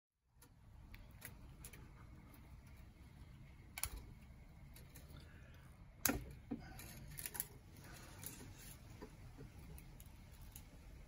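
Faint clicks and taps of ukulele strings and a loose wooden bridge being handled as the strings are taken off, with two sharper clicks about four and six seconds in, over a steady low room hum. Near the end the strings are being slackened and unwound at the tuning pegs.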